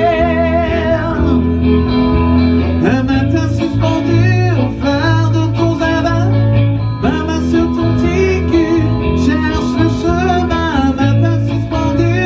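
Music: guitar accompaniment with a singing voice carrying a wavering melody.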